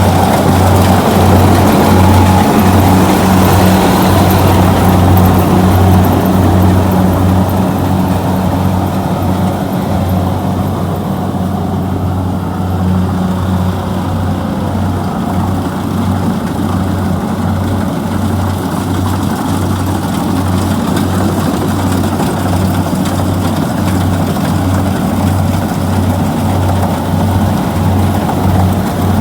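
Kubota DC-70G rice combine harvester running: a steady diesel drone with a low throb that pulses evenly about once a second, a little louder over the first ten seconds.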